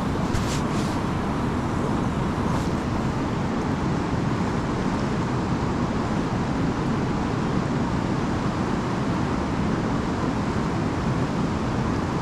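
Steady rushing roar of a large, fast river, its water noise strongest in the low range and unchanging throughout.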